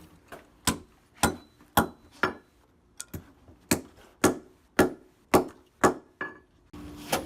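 Hammer driving tack-strip nails into a concrete floor: a steady run of sharp blows, about two a second.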